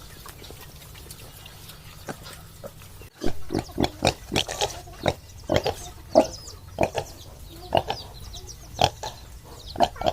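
Pigs grunting and squealing in a quick, irregular series of short calls, starting about three seconds in after a faint low hum.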